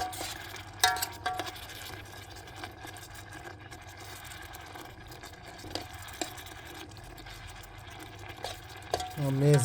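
Pasta cooking in an electric kettle: a faint steady sizzle, with a spoon scraping the kettle about a second in and a couple of light clicks later on.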